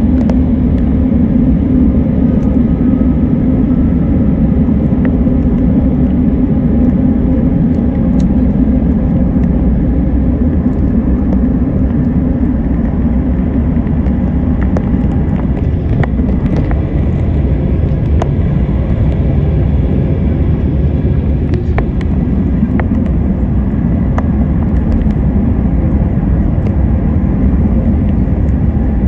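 Steady low roar of cabin noise aboard an Airbus A350-900 airliner, with a few faint clicks.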